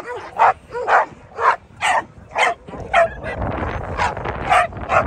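American Pit Bull Terrier barking over and over, sharp high-pitched barks about twice a second.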